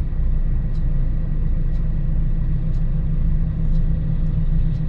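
Steady low rumble of a heavy diesel engine running, with a faint light tick about once a second.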